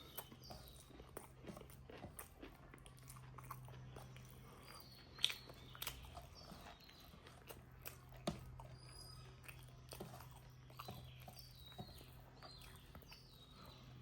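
A person chewing and smacking their lips while eating pork, with scattered sharp mouth clicks, one louder click about five seconds in. A steady low hum runs underneath.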